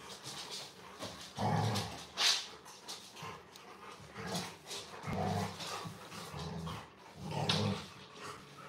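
A German shepherd and a golden retriever growling in play while tugging on a ring toy: short low growls in repeated bursts, with a sharp knock about two seconds in.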